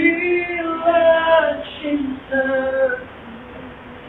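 A woman singing a slow song in long held notes; the singing turns quieter near the end.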